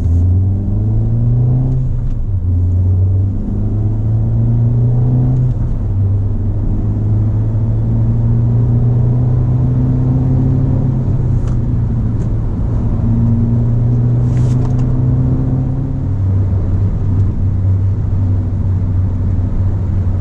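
Ford Fiesta ST engine pulling as the car accelerates: its note rises, drops with a gear change about two seconds in, rises again, then settles to a steadier cruise.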